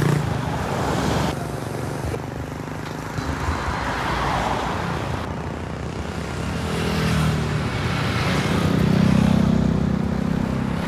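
Motor vehicle engine running amid road traffic noise, changing abruptly about one and five seconds in, and swelling louder around nine seconds in.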